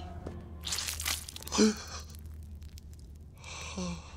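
People gasping in shock: a sharp breathy gasp about a second in, a short voiced exclamation, then another breathy gasp near the end.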